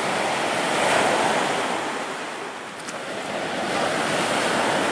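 Small sea waves breaking and washing up a sandy beach, a steady rushing surf that swells about a second in and again near the end.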